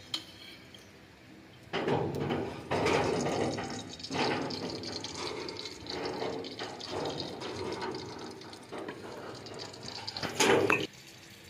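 Water running and splashing, starting about two seconds in, uneven in level, and cutting off suddenly near the end after a louder last gush.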